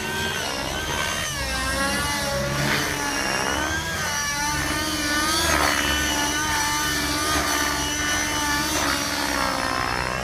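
Radio-controlled helicopter flying aerobatics, its rotor and drivetrain pitch rising and falling again and again as it manoeuvres.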